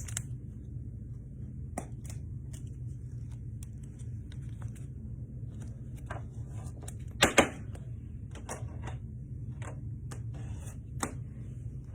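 Scattered light clicks and taps of trading cards and their packaging being handled, with a sharper double click about seven seconds in, over a steady low hum.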